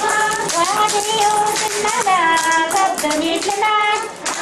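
High voices, women's by the context, singing a wavering, sliding chant, held notes breaking into short phrases. A quick, steady tapping or clapping beat runs under the singing.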